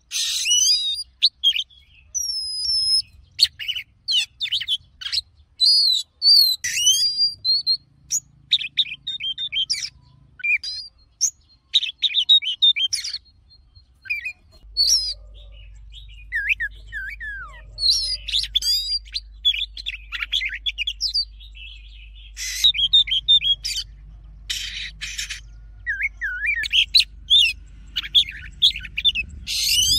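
Oriental magpie-robin singing: a long run of varied, clear whistled phrases with quick rising and falling slurs and rapid chirps, broken here and there by short harsh, raspy notes.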